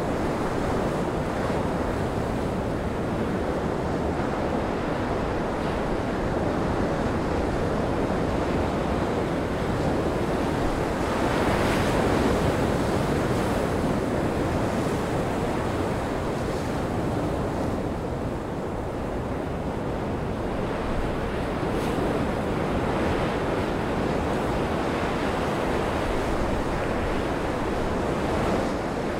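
Rough sea in a gale: a continuous rush of breaking surf and wind, with wind buffeting the microphone. The rush swells a little louder about twelve seconds in.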